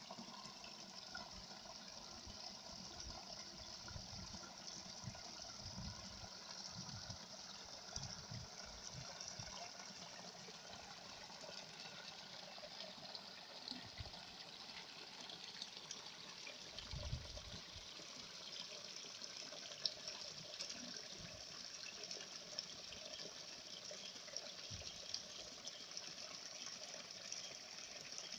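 A small stream trickling and flowing between rocks: a faint, steady rushing hiss, with a few scattered low thumps.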